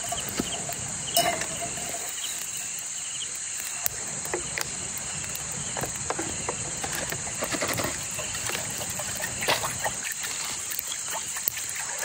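Forest creek ambience: a steady high insect drone over the running creek, with scattered light clicks and knocks of camp gear being handled.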